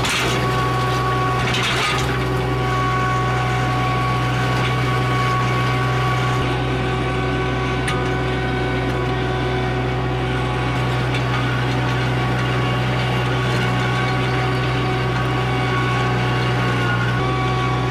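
Summit TX25 compact tractor's diesel engine running steadily under load as it drags a box ditcher through the soil, a constant drone with no change in speed.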